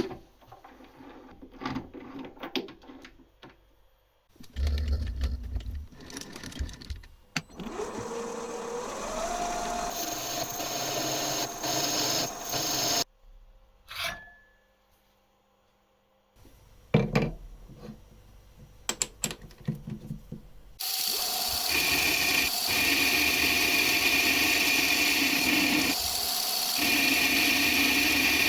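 Metal workshop work on a hand tool: scattered clicks and knocks of parts being handled, then a power tool spinning up, its pitch rising and settling. After a short silent gap and more clicks, a machine starts about twenty seconds in and runs steadily, with two brief dips.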